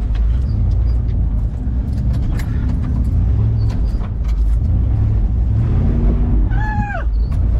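Willys jeep's engine running steadily at low revs, a heavy low rumble, with scattered clicks and knocks as it drives a rough off-road trail. Near the end comes a brief high-pitched sound that falls away.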